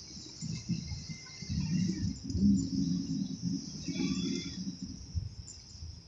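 Steady high insect drone with faint bird chirps, under uneven low rumbling close to the microphone.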